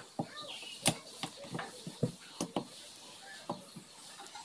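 Irregular sharp clicks and clinks of a hand tool and small metal parts against the aluminium crankcase of a Hero Honda CBZ Xtreme 150cc engine during reassembly. There are about ten taps, the loudest about a second in.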